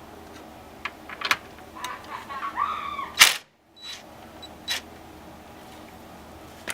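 A few scattered sharp metallic clicks and knocks of a socket wrench being fitted and worked on a steering wheel's 19 mm centre nut, with one loud knock about three seconds in.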